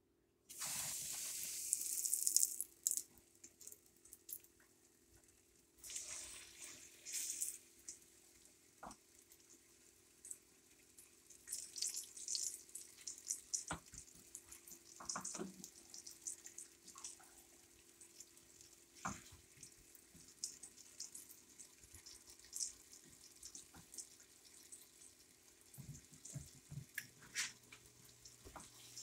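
Flour-dredged chicken fillets laid into hot olive oil in a deep pan: a loud sizzle breaks out about half a second in, a second burst follows around six seconds in as the next piece goes in, then the oil keeps crackling and spitting as the chicken sears.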